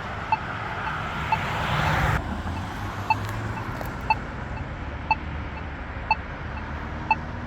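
Polara iNS accessible pedestrian signal push button's locator tone, a short tick about once a second, marking the button's place while the signal shows don't walk. Traffic runs underneath, with a passing vehicle swelling and cutting off about two seconds in.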